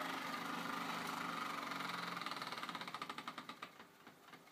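1920s Bing toy vertical steam engine, fired by a methylated spirit lamp, running with a rapid, even chuffing beat that grows fainter over the last couple of seconds.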